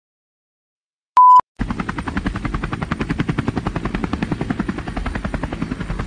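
A short, loud electronic beep, then a rapid chopping rotor sound like a helicopter's, a sound effect for the drone's propellers starting up, beginning about a second and a half in.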